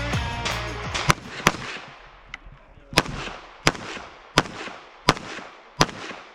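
Rock music fading out, then seven pistol-calibre gunshots, each with a short echo: a quick pair about a second in, then single shots at an even pace of roughly one every 0.7 seconds.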